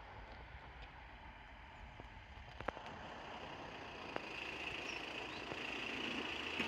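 A vehicle approaching, its faint rumbling noise growing slowly louder through the second half.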